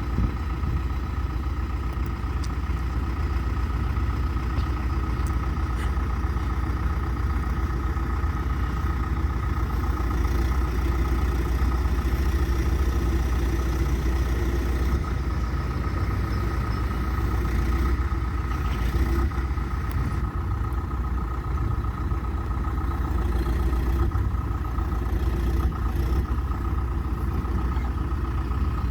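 John Deere 310SG backhoe loader's diesel engine running steadily, with a constant high-pitched whine over the engine sound and a few light clicks.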